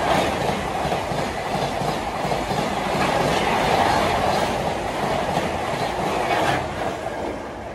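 Indian Railways express of red LHB coaches passing at speed: a steady wheel-on-rail rumble with the clickety-clack of wheels over rail joints, fading away once the last coach has gone by, about seven seconds in.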